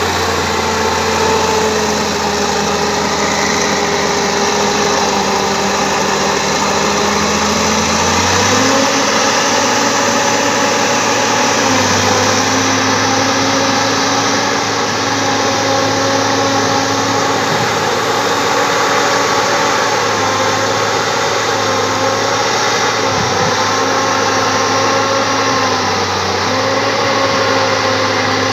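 Bulldozer's diesel engine running steadily under work, its note changing about eight seconds in and again near twelve seconds as the load shifts.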